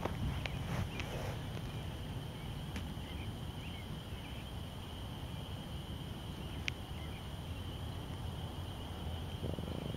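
Outdoor evening ambience: a steady high-pitched chorus of calling animals over a steady low rumble, with a few faint clicks and one short sharp chirp about two-thirds of the way through.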